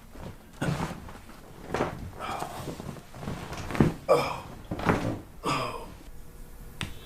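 Several sharp pops and knocks during a chiropractic adjustment, the loudest about four seconds in, with short vocal exclamations from the patient in the second half.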